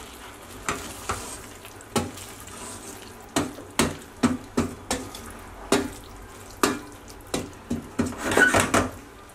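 Wooden spoon stirring okra stew in a stainless steel pot, mixing in water just added: irregular sharp knocks of the spoon against the pot with a wet sloshing of the liquid, and a busier flurry of stirring near the end.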